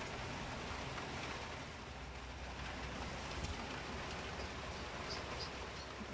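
Steady rain falling, heard as an even noisy hiss with a few faint drop ticks.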